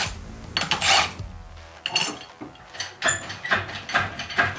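A power drill-driver runs in one short burst, then a run of sharp metal clicks and knocks from tools, during work on the engine's upper mounts.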